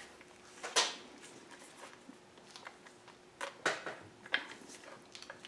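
Scattered clicks and knocks of metal and rubber steering-rack parts being handled and pushed together, the sharpest about a second in and a few more bunched past the middle, over a faint steady hum.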